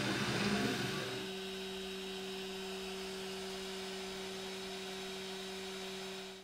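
Prusa i3 3D printer printing: its stepper motors whir in shifting tones, and about a second in the sound settles into a steady low hum of two pitches.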